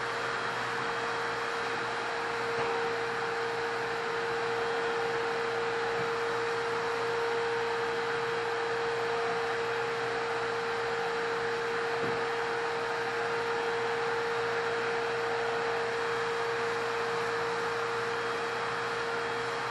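Steady machine hum: one constant mid-pitched tone over an even hiss, unchanging throughout.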